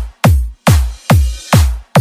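Bass-boosted ragatak-style dance remix: a heavy kick drum with a deep downward pitch sweep on every beat, a little over two beats a second, with hissy cymbal-like noise filling the gaps between beats from about halfway.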